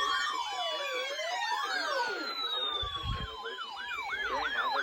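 Electronic emergency-vehicle sirens, several sounding at once. One runs a slow wail that sweeps down and back up, and from about four seconds in a fast yelp of about three sweeps a second sounds alongside it.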